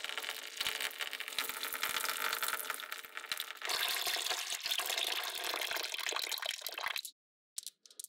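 Water pouring steadily, a little louder from about three and a half seconds in, then cutting off suddenly about seven seconds in.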